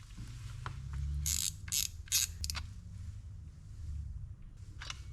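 Okuma Epix EB80 fishing reel being handled as it is taken apart: a few short, sharp clicks and scrapes of small parts, over a low steady hum.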